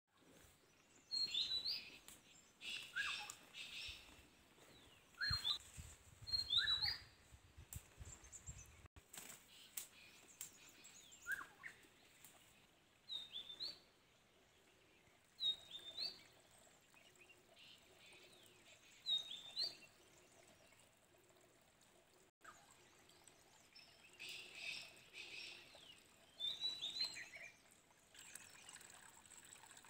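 Wild birds calling in woodland: a short, high call repeated every couple of seconds, with patches of quieter chattering between. A low rumble comes in about five seconds in and stops near nine seconds.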